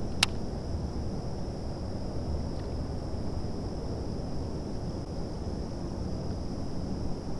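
Steady low rumble of wind on the microphone over open water, with a faint steady high-pitched whine throughout and one sharp click just after the start.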